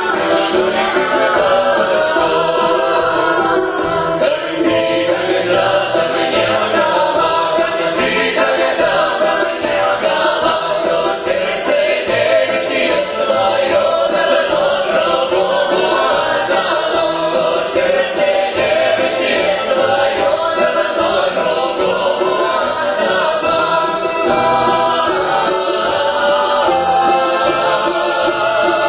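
Mixed male and female folk ensemble singing a Russian Cossack song in multi-part harmony, performed live.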